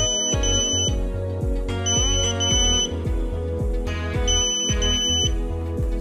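The Arduino RFID door lock's buzzer beeps in three pairs of short, high beeps about two seconds apart, signalling that the scanned card is an invalid RFID tag and the door stays locked.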